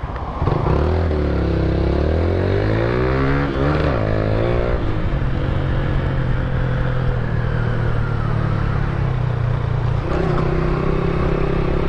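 Honda CBR1000RR Fireblade's inline-four, stripped to a naked and fitted with a Roncar aluminium exhaust, pulling hard with the pitch rising for about four seconds. The pitch then drops about five seconds in and the engine runs steadily.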